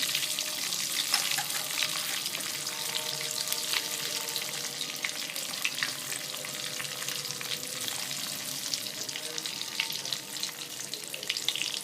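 A tempering of dals, mustard seeds, cumin and curry leaves sizzling in hot mustard oil, a steady hiss with constant fine crackling as freshly washed urad dal goes in and fries.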